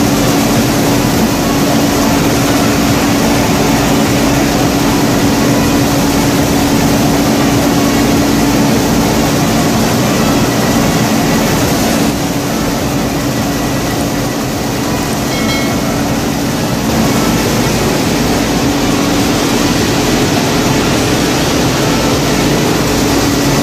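Grain mill machinery running steadily: a loud constant mechanical drone with a steady hum, dipping slightly in level about halfway through.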